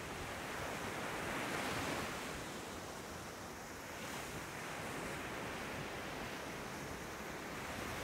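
Small sea waves breaking and washing up a sandy beach: a continuous surf rush that swells about two seconds in and again around four seconds.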